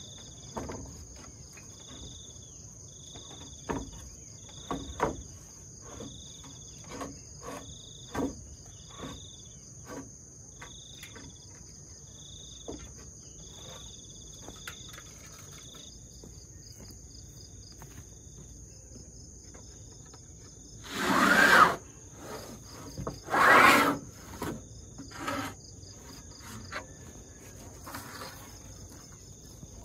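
Steady insect chirring with a short chirp repeating about once a second. Scattered knocks and clicks come from corrugated cement roofing sheets being handled on a bamboo frame, and two louder scraping noises of about a second each come past the middle.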